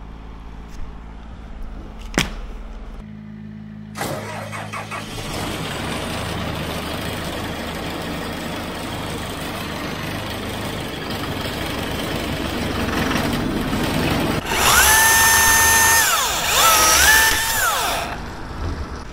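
Machine engine running steadily and slowly growing louder, then near the end a loud high-pitched power-saw motor whine that briefly drops in pitch and recovers as it takes load.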